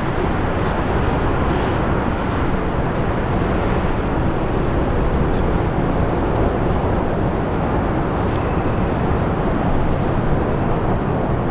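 Jet airliner engine noise: a loud, steady rumble with no clear change in pitch.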